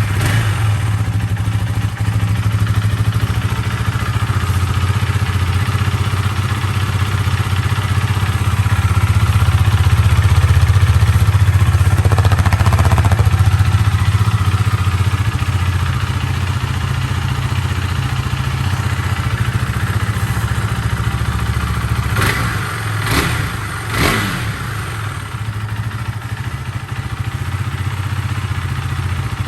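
2020 Husqvarna Vitpilen 401's single-cylinder four-stroke engine idling steadily through its stock muffler, just after being started. Three short sharp knocks come about three-quarters of the way through.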